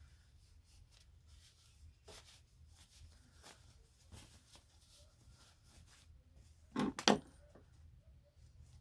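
Faint handling sounds of a sewn cloth mask being pushed right side out with a paintbrush: soft rustles and light taps, with two louder knocks close together about seven seconds in, over a steady low hum.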